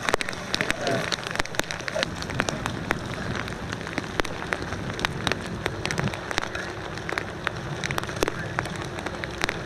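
Rain falling, with many irregular sharp drop ticks over a steady hiss. A faint low steady hum joins about halfway through.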